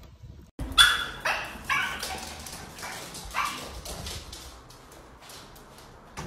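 A dog barking: four loud barks in the first few seconds, the last one set apart from the first three.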